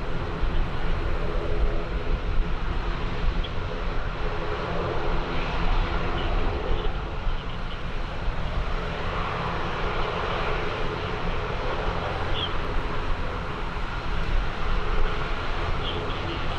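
Aircraft engine running with a steady drone, over an irregular low rumble of strong wind buffeting the microphone.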